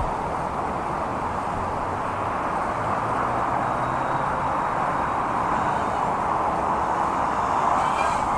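Steady rushing of wind, with the faint buzz of the Revell Control Spot 2.0 mini quadcopter's propellers rising in pitch near the end as it flies in close.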